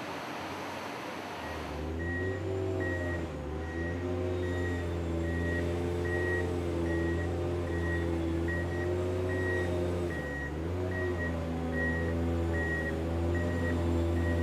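A steady rushing noise gives way after about two seconds to a Kirow Multi Mover hot-metal ladle carrier's engine running under load, with its warning beeper sounding about twice a second. The engine's pitch dips briefly twice, as its load changes.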